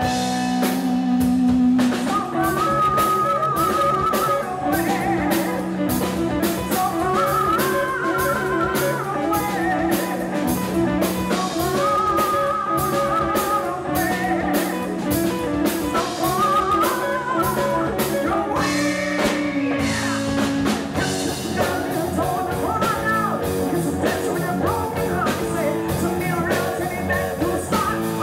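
Live rock band playing: electric guitar and drum kit with a steady beat, and a woman singing lead vocals from about two seconds in.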